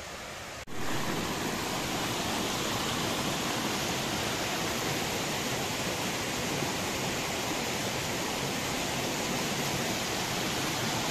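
Steady rushing noise of running water, as from a stream or waterfall. It jumps suddenly louder less than a second in, then holds even.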